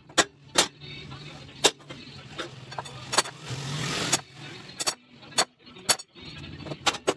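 Sharp metallic clanks and taps of steel bars and tools being handled, about a dozen strikes at irregular intervals, each ringing briefly, over a faint low steady hum.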